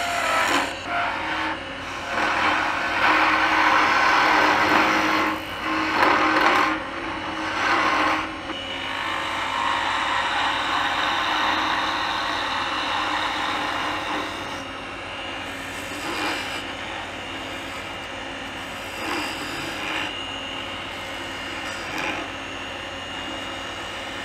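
A hand-held turning tool cutting a spinning maple spindle on a wood lathe, a rushing hiss of shavings. The cuts come in uneven strokes, heaviest in the first eight seconds, then settle into a steadier, lighter cut that eases off toward the end, over the lathe's steady running hum.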